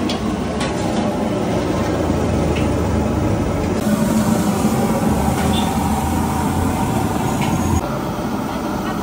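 Steady hiss and low hum of a street-stall cooking setup: food frying on a large steel griddle over a stove, with a few light clicks of the ladle on the pan.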